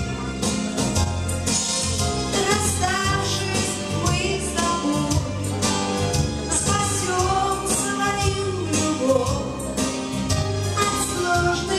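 Dance music with a singer over a steady beat and bass.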